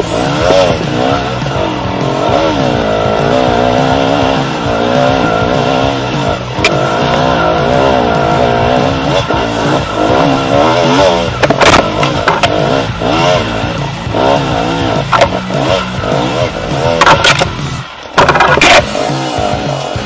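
Trail dirt bike engine revving up and down over and over as the bike rides a rough forest track, with several sharp knocks in the second half.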